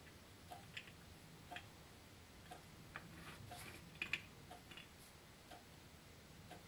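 Faint ticking about once a second, like a clock, with a few other light clicks and taps scattered among the ticks.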